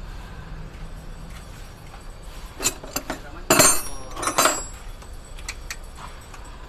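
Metal hand tools clinking and clanking against each other and the truck's engine parts: a handful of sharp, ringing clinks in the middle, the loudest about three and a half seconds in.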